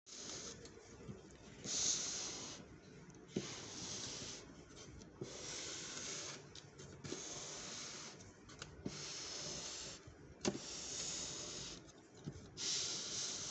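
Plywood box scraping over a tabletop as it is turned by hand, in a string of stretches about a second long with short gaps between. A few sharp knocks of the wood against the table, the loudest just past the middle.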